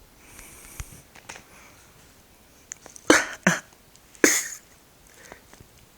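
A person coughing three times in quick succession, the last cough the longest.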